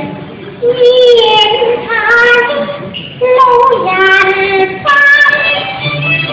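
A woman singing Cantonese opera in a high voice: long held notes that bend and slide in pitch, in phrases with brief breaks between them.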